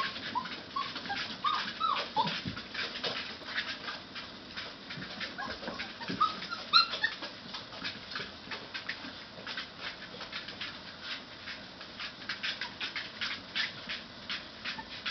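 A litter of puppies squeaking and whimpering in short high calls, most of them in the first few seconds. A louder yelp comes about seven seconds in. Under the calls runs a constant fast ticking and scuffling of small claws on a hard floor and a plastic dog bed.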